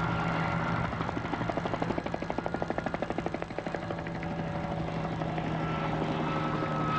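Helicopter in flight: a steady turbine and engine hum, with the rotor's rapid, even beating coming through strongly for a couple of seconds about a second in.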